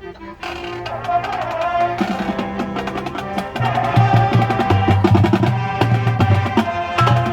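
High school marching band playing its field show: sustained wind chords over busy drumline percussion. The full band comes in about half a second in and swells louder about halfway through.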